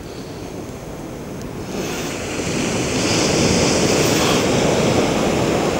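Seaside wind and surf on a shingle beach: a steady rushing hiss that swells louder about two seconds in and holds.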